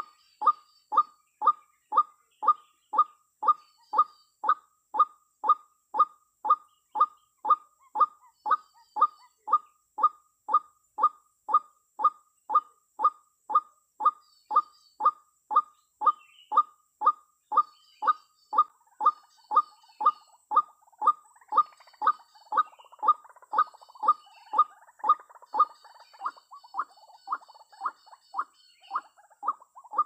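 White-breasted waterhen calls: a steady run of short, loud, pitched notes about twice a second. From about twenty seconds in the calls grow rougher and more crowded, overlapping one another. Small birds chirp faintly higher up.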